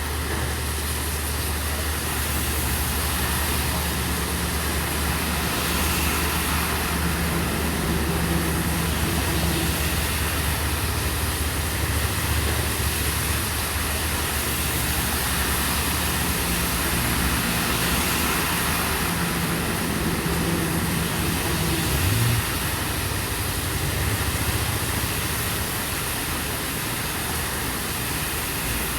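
Steady rain falling, with a vehicle engine idling as a low, steady hum underneath; the hum briefly rises in pitch a little past the middle.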